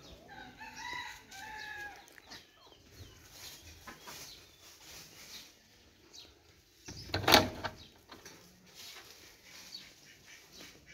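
A rooster crows once near the start, with other chicken sounds faint in the background. About seven seconds in comes a single loud knock, the loudest sound here.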